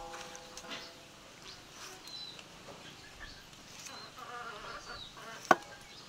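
Insects buzzing, with a few short pitched calls and chirps. One sharp knock about five and a half seconds in is the loudest sound.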